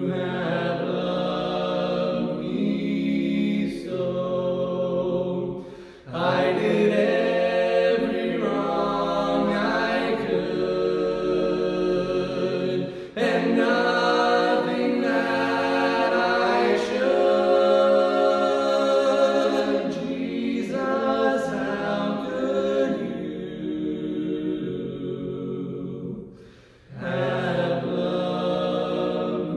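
Trio of two men and a woman singing a cappella in close harmony, long held notes with brief breaks for breath about six, thirteen and twenty-seven seconds in.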